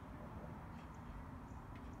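Quiet outdoor background: a steady low rumble with a couple of faint, short high chirps.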